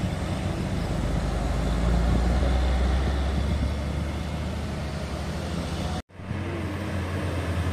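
Heavy trucks' and a bus's diesel engines running on the road, a steady low rumble. It breaks off for an instant about six seconds in, and another truck engine takes over.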